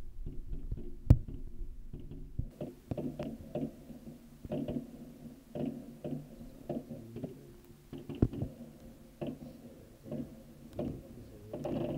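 Fireworks going off: a string of irregularly spaced bangs, the sharpest about a second in and about eight seconds in, over a steady low hum.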